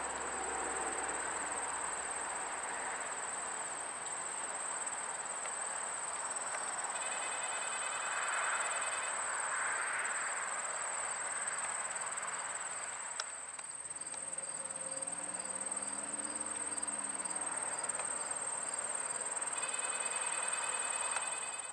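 Insects singing outdoors: a steady, unbroken high-pitched trill, with a second pulsing insect song joining in briefly twice.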